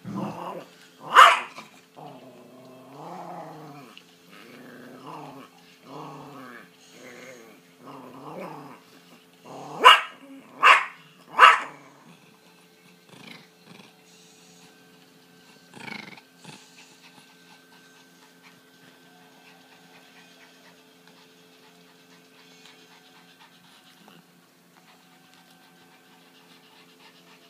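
Small dog growling in a run of short grumbles, with a sharp bark about a second in and three quick barks in a row near the middle, then one more bark a few seconds later.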